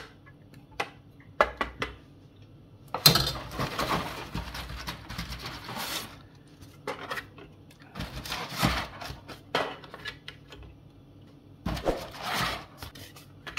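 A ladle tapping in a metal baking tin of béchamel, a few sharp clicks. Then dry lasagne sheets rustle and clack as they are pulled from their cardboard box and laid in the tin, in three bursts of handling.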